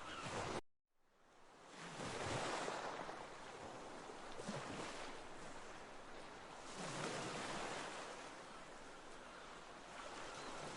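Ocean waves washing, the noise swelling and ebbing every two to three seconds, after a brief moment of silence about a second in.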